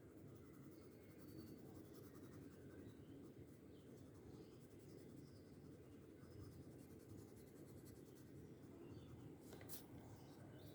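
Faint scratching of colouring strokes on paper, close to near silence, with a short tap near the end.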